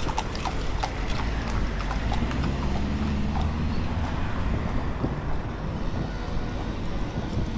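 Horse's hooves clip-clopping in a quick run of sharp clicks, thickest in the first couple of seconds, over a low rumble of wind on the microphone.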